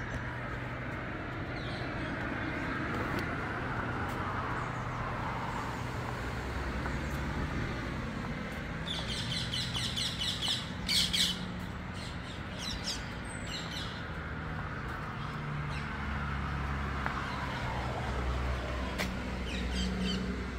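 Birds calling outdoors, with a burst of rapid, high-pitched squawking chatter about halfway through and a few more calls near the end, over a steady background hum.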